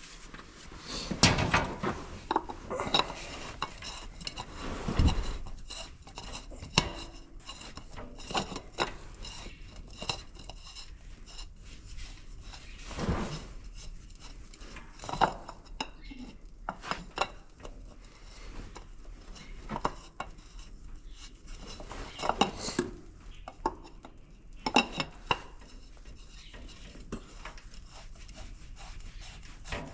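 Scattered light metallic clinks, taps and rubbing of hands fitting a new canister filter onto a John Deere tractor engine that is not running.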